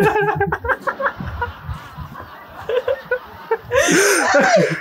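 A man laughing: short bursts in the first second, a quieter stretch, then a louder burst of laughter near the end.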